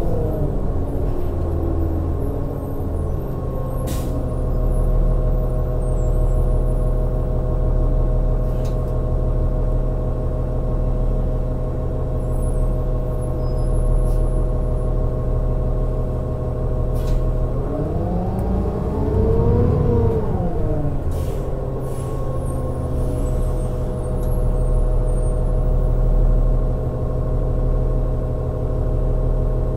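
Interior sound of a 2009 New Flyer D40LFR diesel transit bus on the move, its engine and drivetrain running steadily with a held whine. The pitch drops early on, then rises and falls once about two-thirds of the way through. A few light knocks and rattles come through the body.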